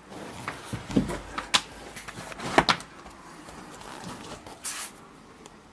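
A few sharp knocks and clacks of household clutter being bumped and shifted, the loudest about two and a half seconds in, then a brief rustling scrape near the end.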